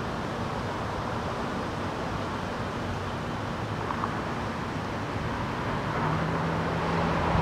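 Steady outdoor background noise with the low hum of distant traffic; a steadier low hum comes in about six seconds in and the sound grows slightly louder.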